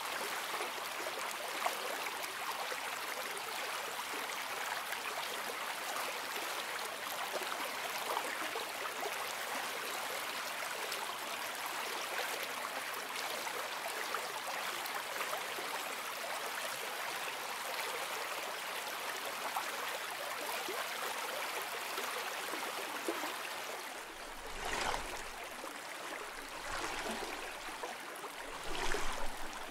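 Steady sound of running water, like a small stream; near the end it changes, with three deeper swells a couple of seconds apart.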